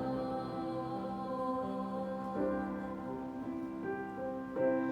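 Slow worship-song music between sung lines: sustained held chords that change a few times, about a second, two and a half seconds and four and a half seconds in.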